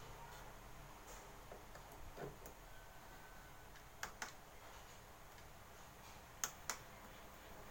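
Two pairs of short, sharp clicks, the second pair louder, over a faint steady hiss.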